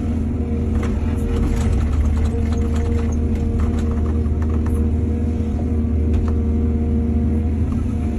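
Heavy diesel engine of an excavator running steadily, with scattered knocks and rattles in the first few seconds.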